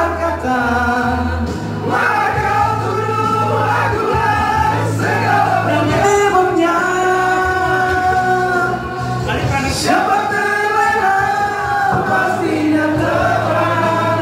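A man singing into a microphone over amplified backing music with a steady bass line, other voices singing along at times.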